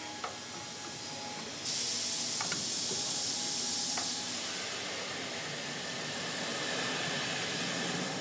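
A sudden hiss of compressed air cuts in about a second and a half in, loudest for a couple of seconds and then going on more softly, over steady assembly-line machinery noise. A few sharp clicks are heard, one near the start, one about two and a half seconds in and one about four seconds in.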